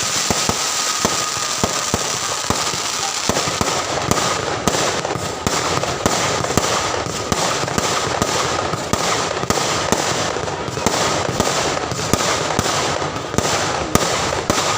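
Fireworks display: a continuous barrage of sharp bangs and crackling, growing fuller and heavier about three seconds in, with a thin steady high whistle running underneath.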